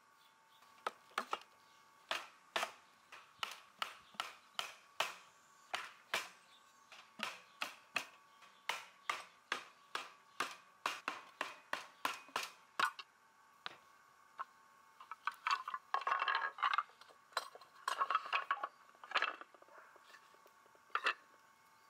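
Rubber mallet knocking repeatedly on the wooden rails and legs of a cabinet base, driving apart loose dowelled glue joints, about two blows a second for roughly the first twelve seconds. After a short pause, loosened wooden pieces clatter and scrape as they are handled and laid down.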